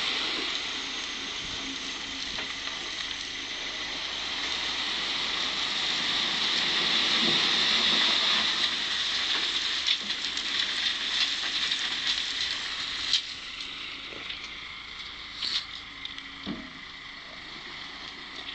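A load of earth and stones sliding off a raised tipper trailer bed: a steady rushing hiss that builds to its loudest about seven or eight seconds in, then thins after about thirteen seconds into scattered stones clattering down.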